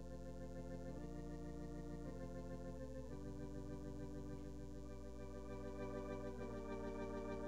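Organ playing slow, sustained chords that change every second or two and slowly grow louder: offertory music while the ushers collect the offering.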